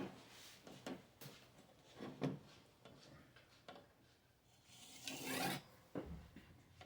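A blade being sharpened: a few short, irregular scraping strokes, then a longer one about five seconds in.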